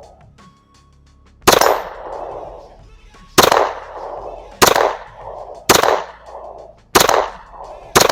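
Six single 9mm pistol shots from a Glock 45 firing Federal 115-grain ammunition, spaced about one to two seconds apart. Each sharp crack trails off in a short echo.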